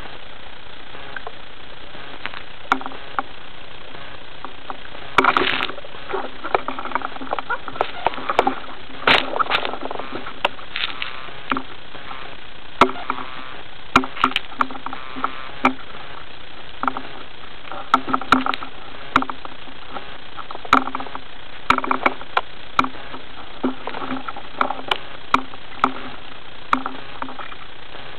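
Water sloshing with irregular knocks and clicks, heard through an underwater camera housing mounted on a speargun, over a steady hiss. The knocks come at uneven intervals from about five seconds in, some with a brief low ring.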